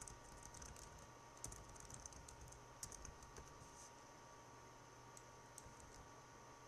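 Faint typing on a computer keyboard: a quick run of keystrokes over the first three seconds, then a few scattered clicks.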